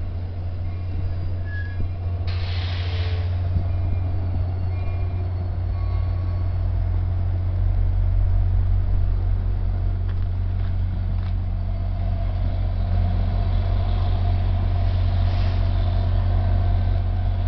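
EMD GP40FH-2 diesel locomotive running with a steady low drone, which grows louder from about seven seconds in. A short hiss of air from the train's air brakes comes about two seconds in.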